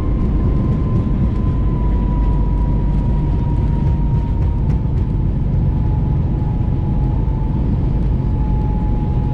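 Airbus A321 cabin noise during the landing roll: a heavy low rumble of the wheels and airframe under a jet engine whine that slowly falls in pitch as the engines spool down.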